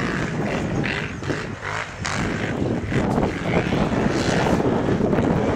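Racing ATV engines revving, their pitch rising and falling, growing louder about three seconds in.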